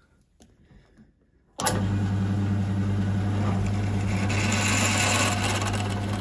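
Pillar drill switched on about a second and a half in, its motor running with a steady hum. Its bit then drills into a brass tube held in the vise, adding a high cutting hiss for a couple of seconds.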